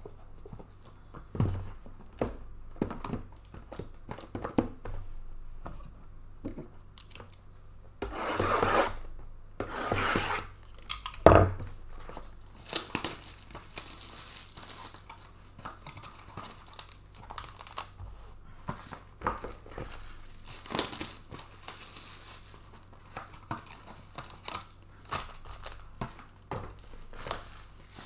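Sealed Topps Tier One trading-card hobby boxes knocked and shifted about on a table, then plastic wrap torn and crinkled from about eight seconds in, with one sharp thump a few seconds later.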